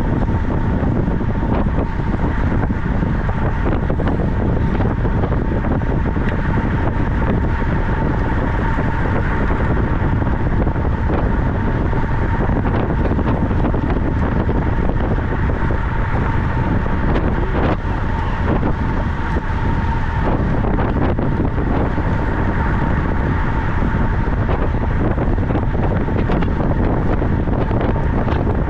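Wind buffeting a microphone moving at cycling speed on a track bike, with a thin steady tone under it.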